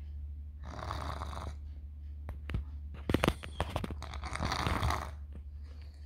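Toddler snoring through a nose blocked by a cold: two long, noisy snores about three and a half seconds apart. Between them comes a cluster of sharp clicks and knocks, the loudest sounds, over a steady low hum.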